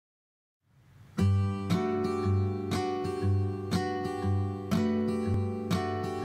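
Background music: an acoustic guitar strumming a steady rhythm, about two strums a second, as the instrumental opening of a song. It starts about a second in.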